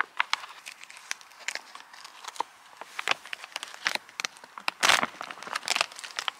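Birch bark being peeled by hand from a small birch trunk: dry crackling and crinkling as the bark splits and lifts away, with a longer tearing sound about five seconds in.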